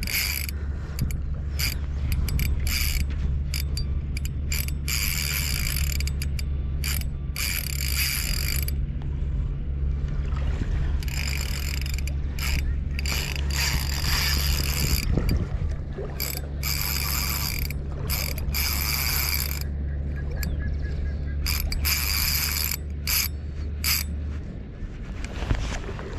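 Spinning reel being cranked to retrieve a lure, its gears whirring in uneven spells of cranking with short pauses between.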